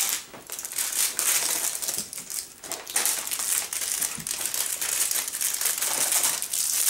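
Wrapper of an individually wrapped Japanese rice cracker being unwrapped by hand, with a steady run of many small crinkles and crackles.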